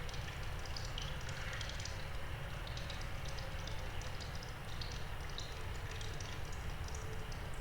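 Cave ambience: water dripping inside the cave in scattered, irregular small drips, over a steady low rumble of wind and rain outside.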